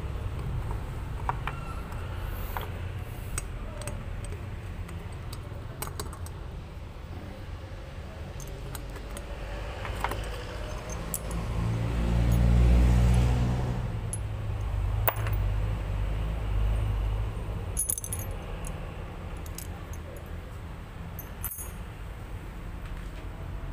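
Small metal parts of a motorcycle cylinder head clinking and tapping now and then as the rocker arm and its pin are worked out by hand. A low rumble swells and fades about halfway through.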